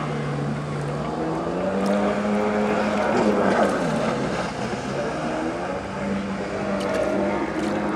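Jet ski engine running hard, its note falling and then climbing again about halfway through as the ski turns through spray.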